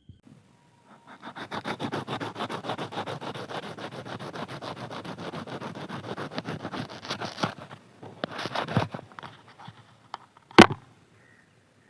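Kitchen knife sawing back and forth through a tomato: a run of rapid rasping strokes, several a second, described as 'khich khich khich'. It stops about seven and a half seconds in, a shorter burst of cutting follows, and a single sharp knock comes near the end.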